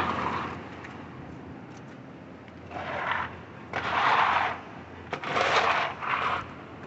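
Wet concrete mix being scraped and spread with a shovel: a short scrape at the start, then after a quieter pause four more scrapes in close succession in the second half.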